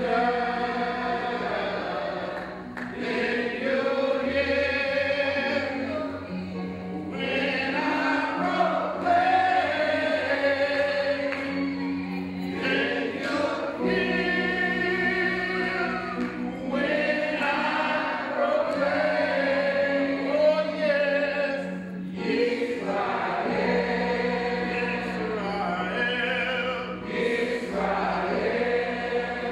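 A congregation singing together, many voices in unison, over an electronic keyboard holding long, steady low notes.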